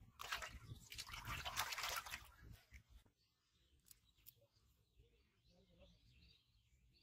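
A fish splashing in a shallow steel basin of water for about two seconds as it is let go into it.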